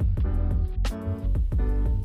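Background music: plucked guitar over a steady beat with heavy bass.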